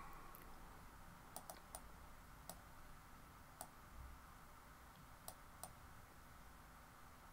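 Computer mouse clicking, about seven faint, sharp clicks at irregular intervals, a couple of them in quick pairs, over quiet room tone.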